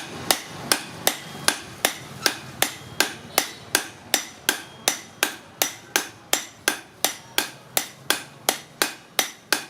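Hand hammer striking metal in a steady rhythm, about two and a half blows a second, each with a short metallic ring, as in hammer work on a cleaver blade.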